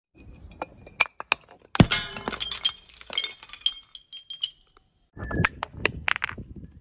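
A full dark glass bottle smashes on concrete steps just under two seconds in, after a few light clinks, and the shards tinkle and scatter for about two and a half seconds. After a short gap, duller noise with a few sharp knocks follows.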